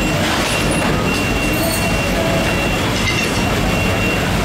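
Steady loud background din, a dense low rumble with a faint high steady tone running through it, with no separate knocks standing out.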